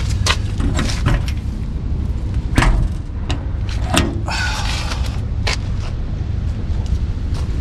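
A diesel engine running with a steady low rumble, under a series of sharp knocks and clatters; the loudest knocks come about two and a half and four seconds in, followed by a brief rattling scrape.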